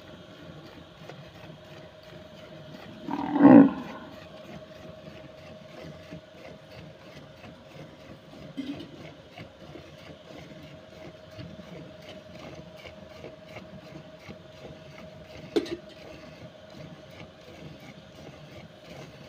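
A cow gives one short, low moo about three and a half seconds in. Under it, milk squirts rhythmically into a metal bucket as the cow is hand-milked.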